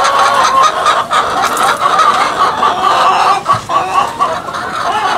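Several hens clucking continuously, short repeated calls overlapping one another.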